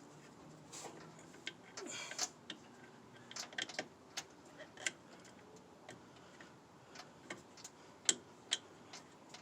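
Irregular light metallic clicks and taps as steel brake lines and their fittings are worked into place on a truck's brake master cylinder, with a sharper click about eight seconds in.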